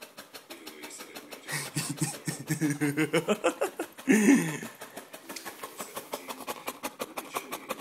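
Boxer dog panting fast and evenly, several breaths a second, tongue out and tired from the heat. From about a second and a half in, a louder wavering voice-like sound joins it, loudest around four seconds in.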